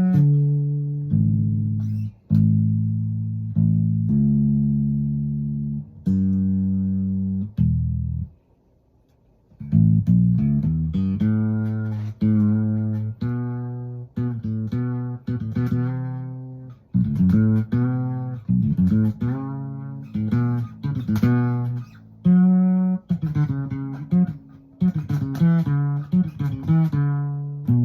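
Rogue Series III fretless electric bass played through a bass amp: plucked notes, held and fading for the first eight seconds. After a short break of about a second and a half, a quicker run of notes follows.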